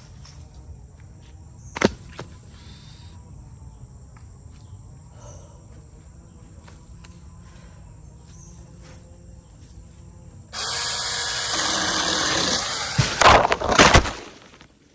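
About ten seconds of quiet, with a steady high insect buzz and one sharp click, then a SeeSii 6-inch battery-powered mini chainsaw runs and cuts through a branch. A loud cracking crash follows as the cut branch falls and knocks the camera over.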